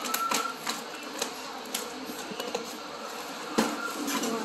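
Irregular clicks, taps and crinkles of a toy box and its plastic packaging being handled as pieces are pulled out, with a sharper knock about three and a half seconds in.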